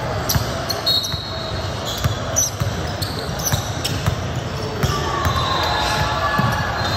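Basketball thumping on a hardwood gym floor in a large echoing gym during live play. Sneakers squeak, most strongly in the last couple of seconds as players run the court.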